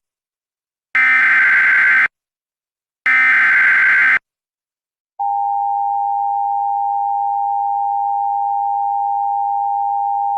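Emergency Alert System tones: the last two of the three SAME header data bursts, each about a second long with a second of silence between, then after about a second of silence the steady two-tone EAS attention signal begins about five seconds in.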